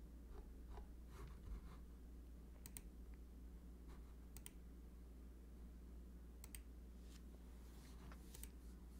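Faint computer mouse clicks, a few spaced irregularly a second or two apart and often in quick press-and-release pairs, over a low steady hum.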